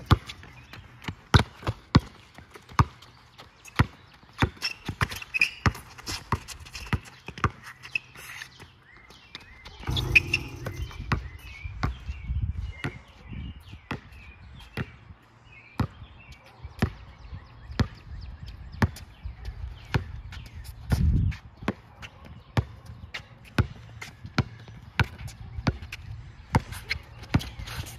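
A basketball being dribbled on a hard court, giving sharp bounces in an uneven rhythm of about one to two a second, the loudest in the first few seconds.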